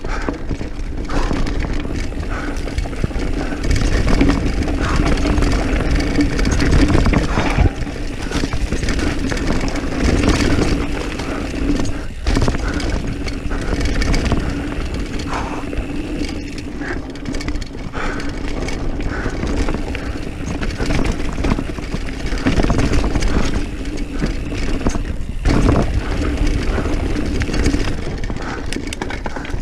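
Diamondback Mission 1 mountain bike rolling fast down a dirt singletrack: continuous tyre rumble and wind noise, with frequent knocks and rattles of the bike over bumps and roots.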